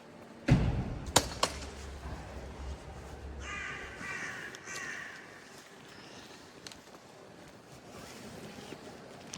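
A loud thump about half a second in, trailing a low rumble, with two sharp clicks just after, then a bird calling briefly a few seconds in.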